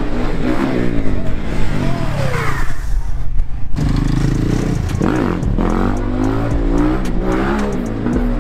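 Motor vehicle engine revving, its pitch repeatedly rising and falling.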